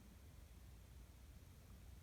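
Near silence: faint low room hum, with no chick chirps.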